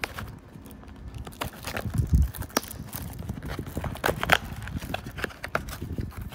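Cellophane shrink-wrap crackling and crinkling as it is torn off a cardboard trading-card box, with irregular sharp clicks and taps of fingers on the box; the sharpest crack comes about four seconds in.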